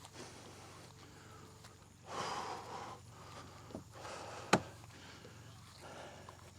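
A man breathing hard with effort while walking a wheeled kayak across slippery mud, a few loud exhales a second or two apart. One sharp click about halfway through.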